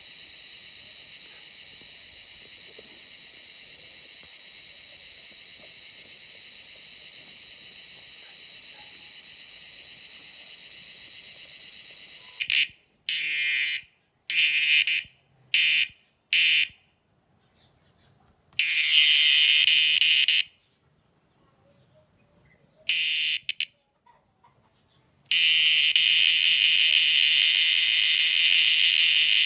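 A night-calling insect's shrill, high-pitched buzzing call. For the first dozen seconds it is a steady, fainter buzz. After that it comes much louder in on-off spells: several brief bursts, then longer ones of about two and four seconds.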